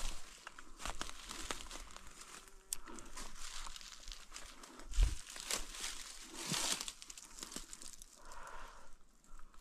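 Dry forest litter rustling and crunching irregularly, with a dull thump about halfway through.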